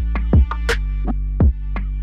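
Electronic background music with a steady drum-machine beat and a sustained bass line.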